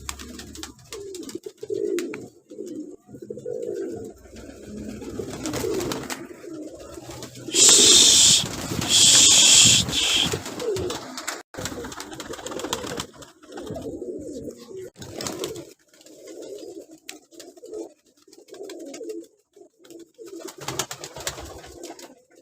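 Domestic pigeons cooing over and over in low, repeated phrases. About eight and nine seconds in come two loud, second-long bursts of hiss.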